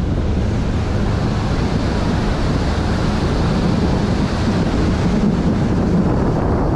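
Small open-topped river cruise boat's engine running steadily with water washing along the hull and wind on the microphone; the low drone grows fuller for a few seconds while the boat passes under a low concrete bridge.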